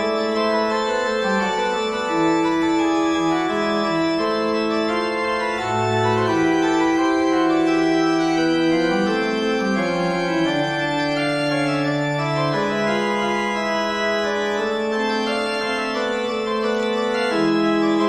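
Organ music: slow, sustained chords whose notes change every second or two.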